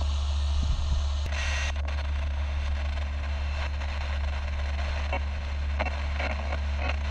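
Portable radio-cassette player hissing with static as its tuning dial is turned, with scattered crackles and clicks over a steady low hum.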